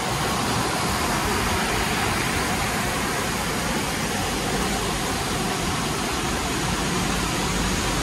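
Steady rushing of a strong-flowing river.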